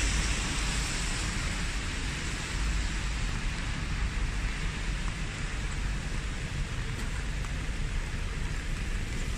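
Steady rain falling: an even hiss with a low rumble underneath.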